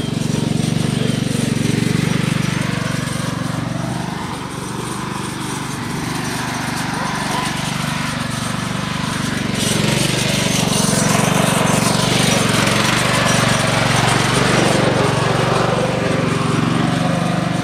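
Riding lawn mower's small engine running steadily as it drives over rough ground, growing a little louder about ten seconds in.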